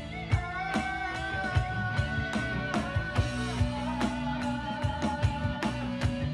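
A small band playing: an electronic drum kit keeps a steady beat under guitar and keyboard holding long sustained notes.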